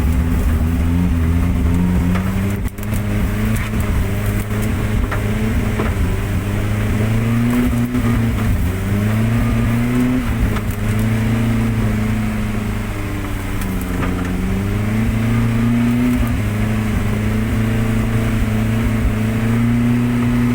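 Daihatsu Gran Max engine running under load while being driven off-road, its pitch rising and falling repeatedly as the revs change.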